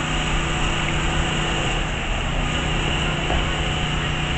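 Small portable generator engine running steadily at a constant pitch, likely powering the blower that keeps the inflatable elephant up.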